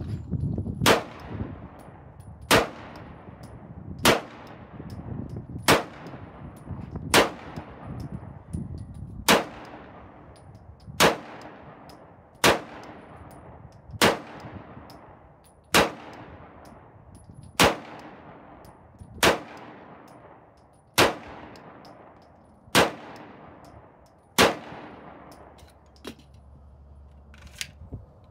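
Sig M11A1 9mm pistol fired slow and steady, about fifteen single shots spaced roughly a second and a half to two seconds apart. Near the end come a couple of light clicks as the pistol is handled.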